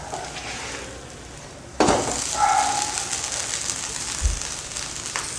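Podi dosa sizzling on a hot nonstick tawa. The sizzle comes in suddenly about two seconds in and then holds steady, with a short low bump near the end.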